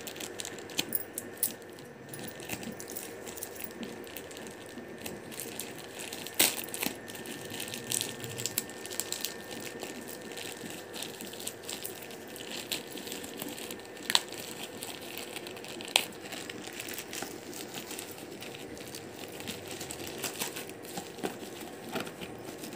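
Plastic courier mailer bag being crinkled and torn open by hand: a steady rustle broken by scattered sharp crackles and snaps of the plastic.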